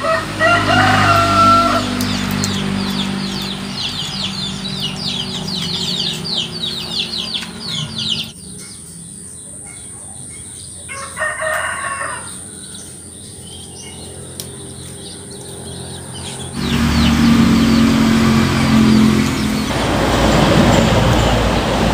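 A rooster crows at the very start, a short pitched call rising in steps, followed by rapid high chirps from birds or insects. Halfway through, the background drops away abruptly, and near the end a low steady rumble takes over.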